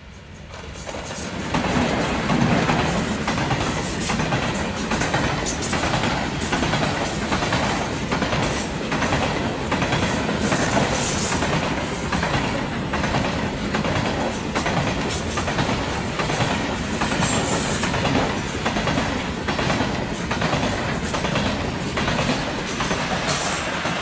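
A diesel-hauled freight train passing close by at speed. The noise swells over the first two seconds as the locomotive arrives, then holds as a steady loud roar while the wagons go by, with a rhythmic clickety-clack of wheels over the rail joints.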